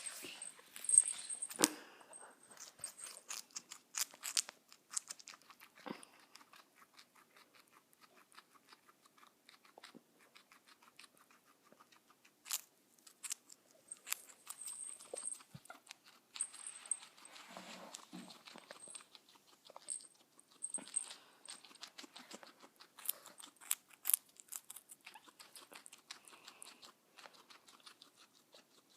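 A guinea pig chewing and crunching food: a long run of small, quick crunches, some louder, with a few short high squeaky sounds in between.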